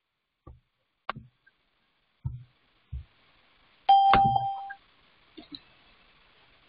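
A few soft, dull knocks, then about four seconds in a short, loud ding: a single clear pitch that starts sharply and fades out within a second.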